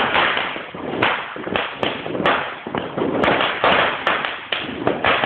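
Fireworks and firecrackers going off close by: a continuous crackle with sharp bangs at an irregular pace, about two strong bangs a second.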